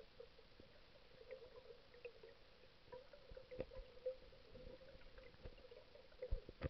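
Faint underwater ambience from a camera held under shallow seawater: a steady muffled hum with scattered small clicks and ticks. A few louder knocks come near the end.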